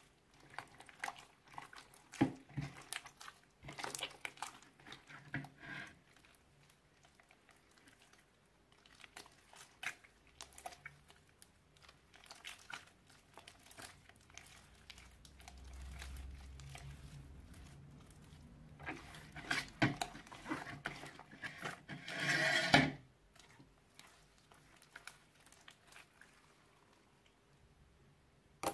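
Glue slime mixed with clay and kinetic sand being squished, stretched and kneaded by hand: irregular sticky clicks and crackles, with a denser, louder run of crackling near the end.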